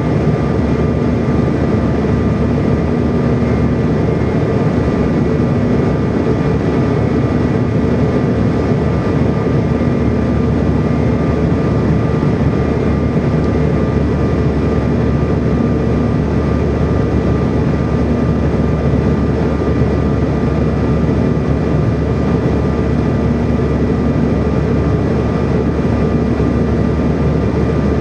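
Steady cabin noise inside a Bombardier CRJ700 airliner on final approach: a constant rush of airflow and engine noise from its rear-mounted General Electric CF34 turbofans, with a thin steady whine above it and a low hum that swells and fades.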